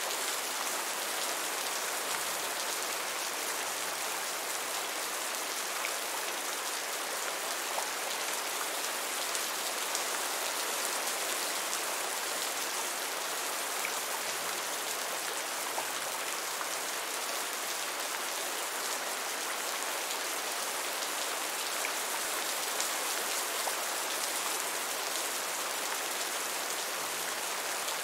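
Heavy rain falling steadily: an even hiss with faint scattered drop ticks.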